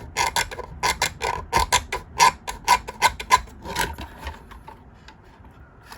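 Hard plastic clicking and tapping from a 3D-printed toy jet being handled: an irregular run of sharp clicks, about four a second, that stops about four seconds in.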